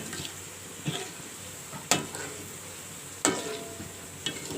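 Kitchen utensils knocking and clinking against cookware five times, about a second apart, a couple with a short metallic ring, over a faint steady hiss.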